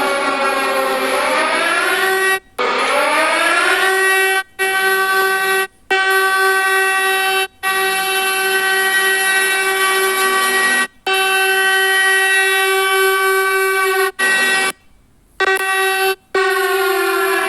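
Recreated wail of fire-brigade alarm sirens. The pitch slides down and then back up over the first few seconds, then holds one steady tone, with a second falling slide near the end. The sound cuts out abruptly to near silence several times.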